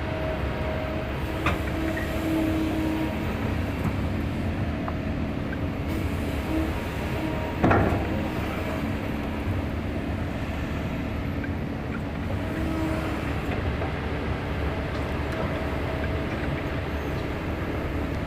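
Heavy diesel machinery running steadily with a low rumble and a droning whine that rises and falls in places. One sharp metallic knock comes about eight seconds in.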